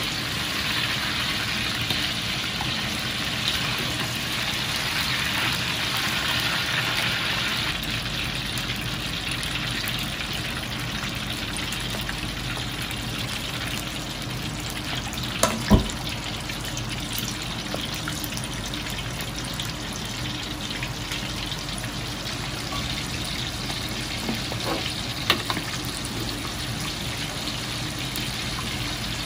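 Hot oil bubbling and sizzling steadily in a wok as chicken wings and then pieces of lobster and crab deep-fry. A sharp knock sounds a little past halfway, and a lighter one near the end.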